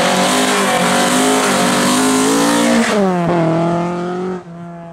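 Rally car engine at full throttle. About three seconds in it lifts off, its note dips, and it carries on quieter as the car moves away.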